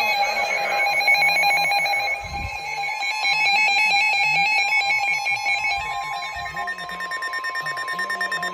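NOAA weather radios sounding a tornado-warning alert: electronic alarm tones that switch between pitches, joined about six seconds in by a steady high tone, the 1050 Hz warning alarm tone, and turning into rapid pulsing beeps near the end. Music fades out in the first couple of seconds.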